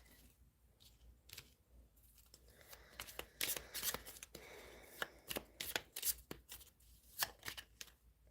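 A deck of affirmation cards being shuffled by hand: a quiet run of quick flicks and card slaps, thickening a few seconds in.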